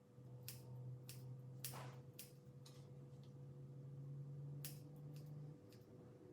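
Kitchen scissors snipping raw livers: a series of faint, irregular snips. A low steady hum runs underneath and stops about five and a half seconds in.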